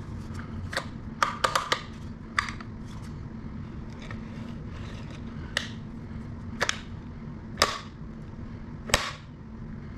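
Sharp metallic clicks and clacks from a rack-mounted cable system's locking mechanism being worked by hand. The clicks come at irregular intervals, with a quick cluster of three or four about a second and a half in, and some ring briefly.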